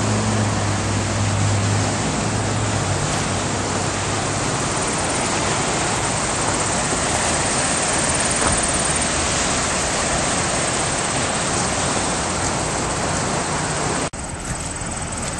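Fast-flowing floodwater of a swollen river rushing, a steady loud hiss. A low steady hum sits under it for the first few seconds, and the sound drops abruptly just before the end.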